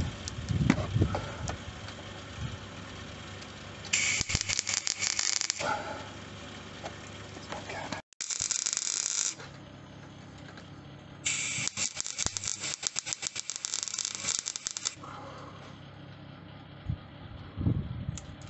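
MIG welder laying short runs of weld on the steel outer sill of a Triumph Spitfire: three bursts of crackling arc, the last and longest lasting about three and a half seconds, with quieter pauses between.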